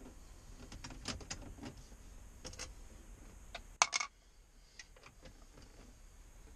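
Scattered light clicks and taps of a hand tool against the plastic dashboard trim around a truck's radio opening, with a sharper double click just before four seconds in.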